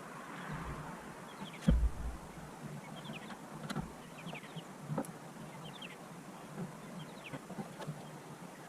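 Small birds chirping faintly and repeatedly, with a few clicks and a single louder knock about two seconds in from hands working on the van's headlight bulbs.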